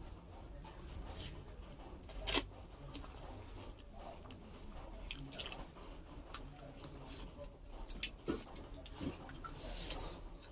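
Close-miked chewing and biting of momos, with wet mouth clicks and smacks throughout. One sharp, louder click stands out about two seconds in.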